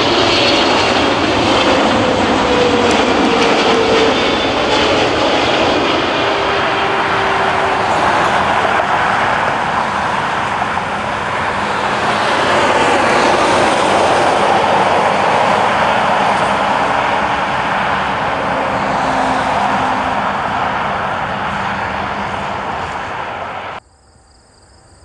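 Jet engines of a Boeing 777-300ER passing low on final approach, with tones falling in pitch as it goes by. The roar continues through touchdown and swells again after the wheels are on the runway, then cuts off suddenly near the end.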